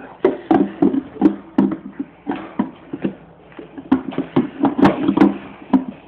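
A loud, uneven run of sharp knocks or taps, roughly two or three a second, each with a brief low ring; they pause for about half a second midway, then resume.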